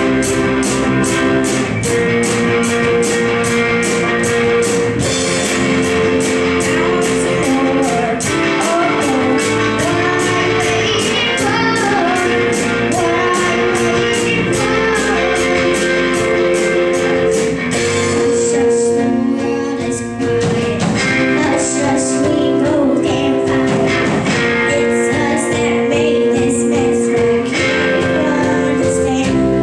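A youth rock band playing live, with drums, electric guitar, bass guitar and keyboard under a girl singing lead. A steady cymbal beat drops out about two-thirds of the way through.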